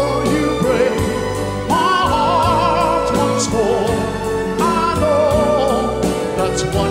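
A male solo singer performs a pop ballad with band backing, holding long notes with vibrato.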